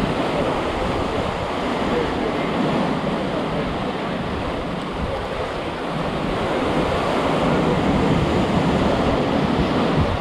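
Ocean surf and waves washing steadily, with wind buffeting the microphone.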